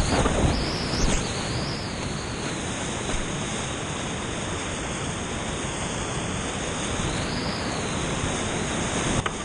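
Whitewater rapids rushing and churning around a kayak, a steady loud roar of water. There are louder splashes in the first second as the kayak drops over a ledge into the foam.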